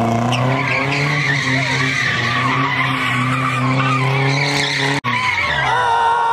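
Nissan 240SX drift car doing donuts, its engine held at steady high revs while the rear tires screech on the asphalt. About five seconds in the sound drops out for an instant; afterwards the engine note fades and a steady high tire squeal carries on.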